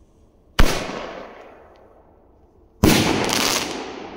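A 38 mm single-shot firework shell fires: a sharp launch bang about half a second in, fading with an echo, then the shell breaks overhead about two seconds later with a second very loud bang and a longer echoing tail.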